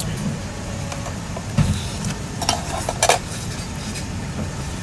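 Steady noodle-shop background noise, with a couple of short clinks of chopsticks and bowls about two and a half and three seconds in.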